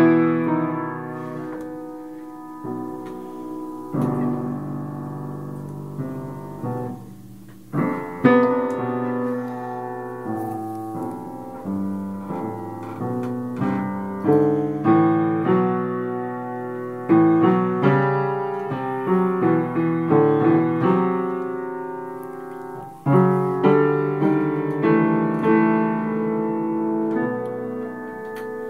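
Piano playing a slow piece of struck chords held with the sustain pedal, so that each chord rings on into the next. The strongest chords land about four, eight, seventeen and twenty-three seconds in.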